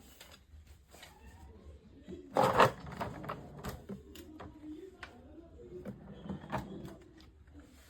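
Scattered clicks and knocks, with a louder clatter about two and a half seconds in, and faint voices under them.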